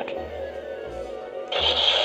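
Hasbro HasLab Spengler's proton pack and neutrona wand playing their electronic sound effects: a low pulsing hum, then about a second and a half in a sudden loud hissing blast that carries on as the wand's barrel tip lights up, the wand's firing effect.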